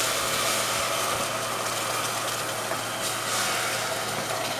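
Water poured from a steel tumbler into a hot stainless steel pressure cooker of dry-roasted little millet and split moong dal, splashing and hissing steadily as it hits the hot pan and grains.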